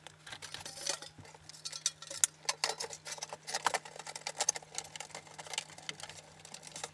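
Black sheet-metal case of a Hameg HM312-8 oscilloscope being worked back on over its chassis by hand: irregular small metallic clicks, taps and scrapes, over a faint steady hum.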